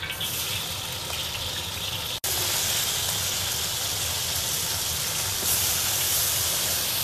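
Pieces of hairtail fish sizzling as they pan-fry in hot oil in a wok, a steady hiss that grows louder from about two seconds in.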